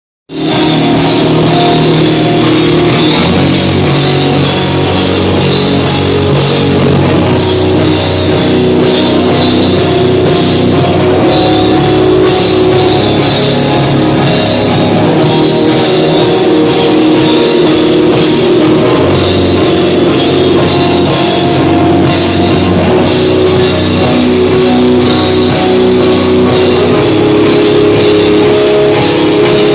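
Loud live rock band playing: distorted electric guitars, bass and a drum kit with steady cymbal wash, starting abruptly just after the beginning.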